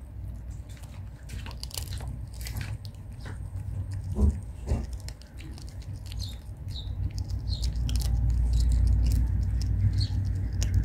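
A cat chewing and licking at food scraps: a run of small, irregular wet clicks and crunches, with two stronger mouthing sounds about four and a half seconds in. A low rumble grows louder in the second half.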